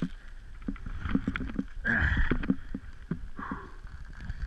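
Skis and ski boots crunching and scraping in snow on a steep slope, a run of short, irregular crunches, with a short rush of noise about two seconds in.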